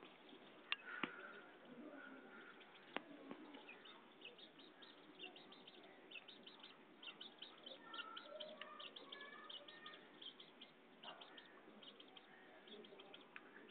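Faint bird chirping: many short, high chirps from about four seconds in, with a few sharp clicks in the first three seconds.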